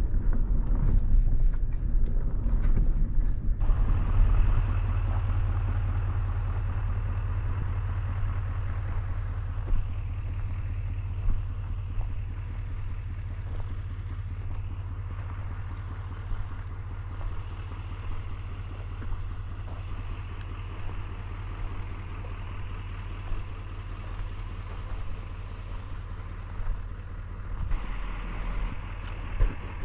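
Motor vehicle's engine running with a steady low rumble, rougher and noisier for the first few seconds, then settling to an even hum about four seconds in.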